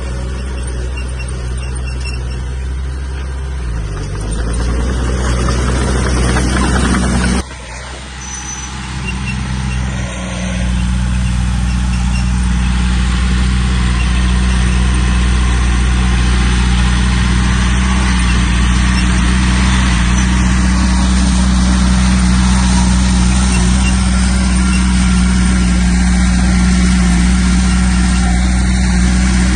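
Heavy diesel earthmoving engine running steadily under load. It cuts away abruptly about seven seconds in, then comes back louder and steady a few seconds later.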